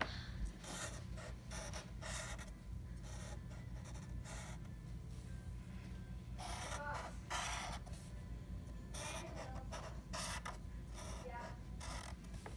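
Sharpie permanent marker scratching across paper in a run of short, separate strokes with brief pauses between them, as small spiky shapes are drawn.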